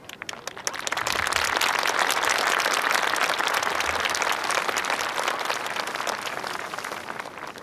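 Crowd of spectators applauding, swelling up within the first second, holding, then thinning out near the end.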